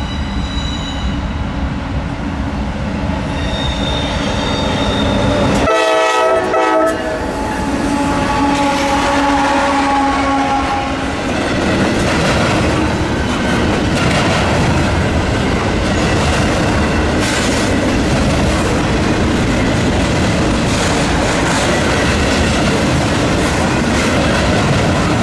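Norfolk Southern GE Dash 9 diesel locomotive passing close with its engine running, sounding a short horn blast about six seconds in. Then double-stack intermodal container cars roll by with a steady clickety-clack of wheels over rail joints.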